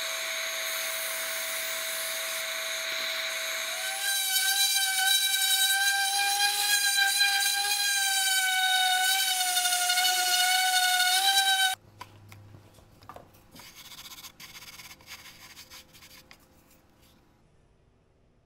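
A stationary shop machine runs with a steady hum and hiss for about four seconds. Then a random orbital sander runs on a hardwood cutting board with a high, slightly wavering whine, stopping abruptly about two-thirds of the way through, followed by a few light handling knocks and clicks that fade out.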